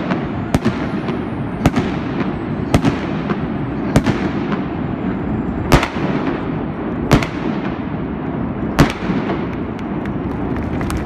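Indoor stadium fireworks shot under a domed roof: seven sharp bangs come at uneven intervals of about one to one and a half seconds, over a steady din, with a few fainter pops near the end.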